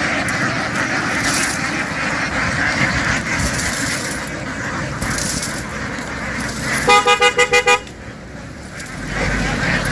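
A vehicle horn sounding a rapid string of about six short beeps, about seven seconds in, over a steady noisy background din.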